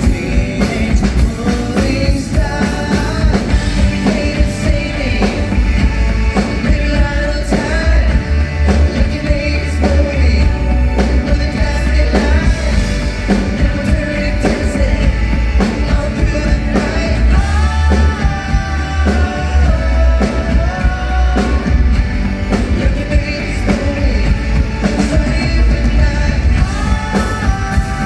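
A live band playing a rock-pop song through a PA, with a sung lead vocal over drums, heavy bass and guitar.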